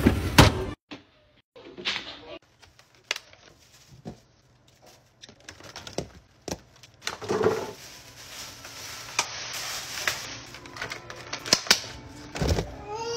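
Irregular clicks and knocks of grocery items and containers being handled and set down while groceries are put away.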